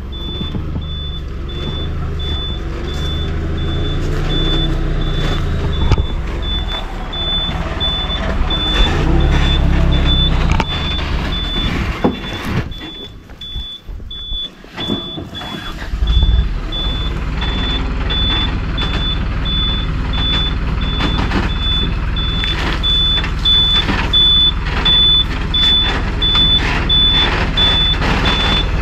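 Sand delivery truck running as it reverses, its reversing alarm beeping steadily in a high, even repeat over the engine. The engine drops away for a few seconds about halfway through and picks up again.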